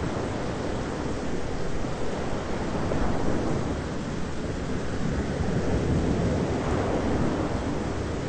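Thunderstorm ambience: a steady rushing roar with a low rumble of thunder that swells about three seconds in and again later on.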